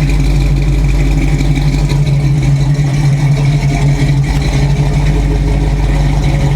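Chevrolet 283 small-block V8 idling steadily after warm-up, exhaling through long-tube headers, dual 2.25-inch pipes and Flowmaster 40 Series mufflers.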